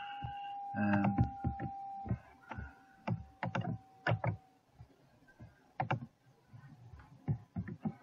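Scattered clicks of a computer mouse and keyboard as software is worked on a desk, with a steady high tone that fades out about halfway through.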